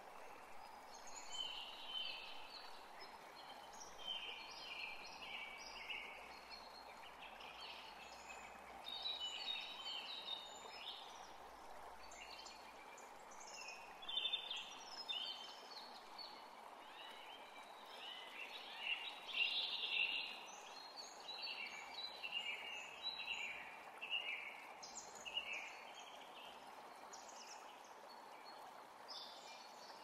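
Small birds chirping and singing, many short calls overlapping, over the steady gentle rush of falling water from a small waterfall.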